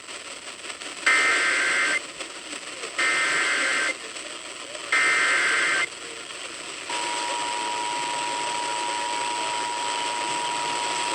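Emergency Alert System SAME header: three rasping bursts of digital data tones, each about a second long and a second apart, marking the start of a broadcast emergency alert. About seven seconds in the steady two-tone EAS attention signal (853 and 960 Hz) begins and holds.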